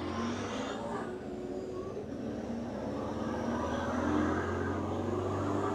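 Low rumble of a passing motor vehicle, swelling about four seconds in and easing near the end.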